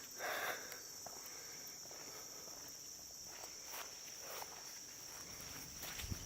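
Steady high-pitched chorus of late-summer insects, crickets or katydids, an even buzz. A few faint footsteps sound through it.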